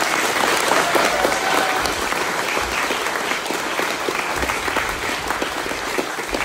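Crowd applauding: many people clapping together in a dense, steady patter that eases off slightly toward the end.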